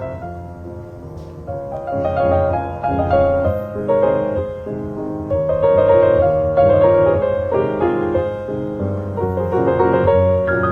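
Background music led by piano, with sustained chords over a bass line.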